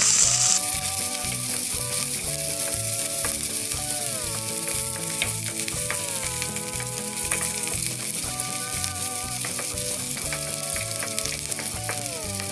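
Chopped onions and curry leaves sizzling as they fry in hot oil in a stainless-steel kadai, stirred with a wooden spatula. A quiet melody of held, gliding notes plays underneath.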